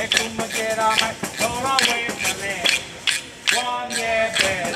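A man singing an Italian song and beating a hand-held frame drum in a regular rhythm.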